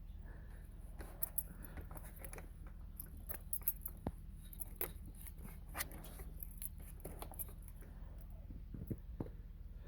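Footsteps crunching irregularly in fresh snow, with a low steady rumble underneath.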